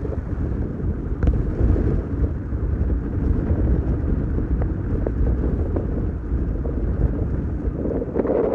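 Strong gale-force wind buffeting the microphone: a loud, steady low rumble that rises and falls with the gusts.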